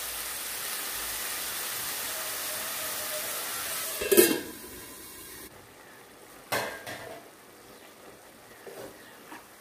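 Wheat pasta in ghee and water boiling in a wok, a steady sizzling hiss. About four seconds in a steel lid is set on the pan with a clatter, and the sizzle drops to a faint, muffled sound, with another light knock of the lid a little later.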